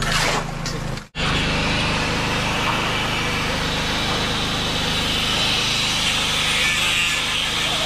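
A shovel scrapes once into sand and gravel. About a second in the sound cuts to an electric angle grinder running steadily as its disc grinds into concrete, a harsh high-pitched grinding noise.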